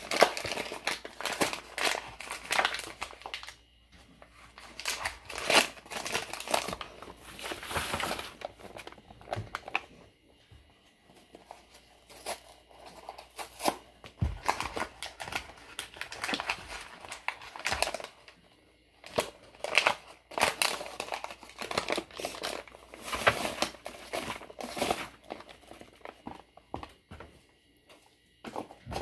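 Paper packaging of corn muffin mix crinkling and tearing in irregular bursts, with short pauses, as the packets are opened and the dry mix is emptied into a disposable aluminium foil pan.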